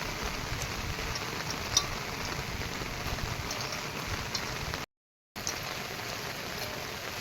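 Steady heavy monsoon rain falling on surfaces, an even hiss with scattered drips. The sound cuts out completely for about half a second around five seconds in, then resumes.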